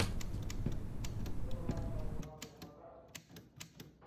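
Manual typewriter keys clacking in an irregular run of sharp clicks, thinning out and fading over the last couple of seconds.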